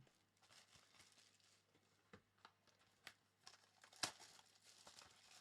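Near silence with faint crinkling of trading-card packaging being handled, and a few sharp clicks, the loudest about four seconds in.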